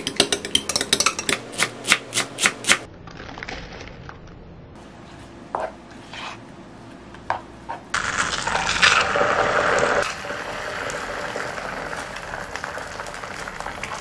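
Kitchen cooking sounds in several short cuts: a quick run of sharp taps of a utensil for the first few seconds, then scattered clinks and knocks, then a loud noisy stretch and a steady hiss from about ten seconds in.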